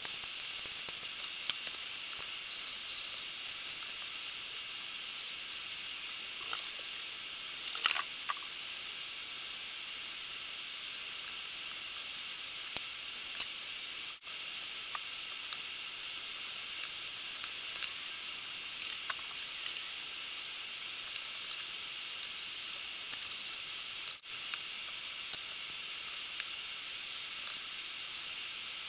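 Steady high-pitched hiss with faint thin whine tones running through it, typical of a recording's own noise, broken by a few faint ticks. The sound cuts out briefly twice, about halfway through and again later.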